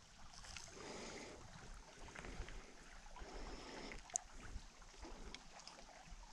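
Faint water lapping against a canoe hull, with a few small clicks and knocks, one sharper click about four seconds in.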